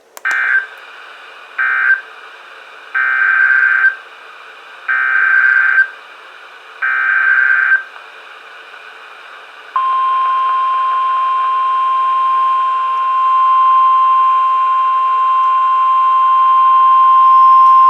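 NOAA Weather Radio Emergency Alert System data bursts: two short buzzy end-of-message bursts, then three longer SAME header bursts about two seconds apart that open the next tornado warning. About ten seconds in, the steady 1050 Hz weather radio warning alarm tone starts and holds.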